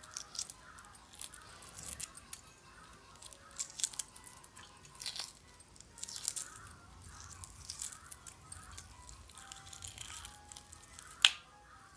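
Loosened shell of a hard-boiled egg being peeled off by hand, with soft crackles and small ticks as the pieces come away. A sharp click near the end.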